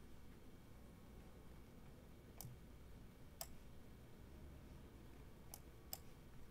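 Near silence broken by four faint, sharp computer mouse clicks: one about two and a half seconds in, another a second later, and two close together near the end.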